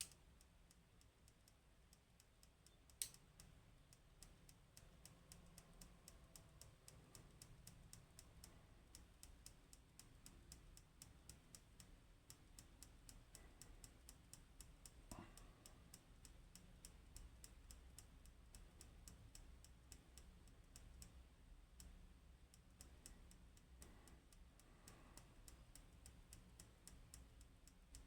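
Faint clicks of a lock pick working the pins of a Goal Z Japanese pin tumbler lock, with one sharp click about three seconds in and another around the middle. A fast, even, faint high ticking runs underneath.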